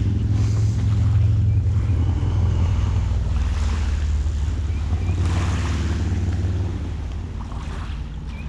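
Wind rumbling on the microphone with small waves lapping at the lake shore; the rumble eases near the end. A few faint bird chirps come through.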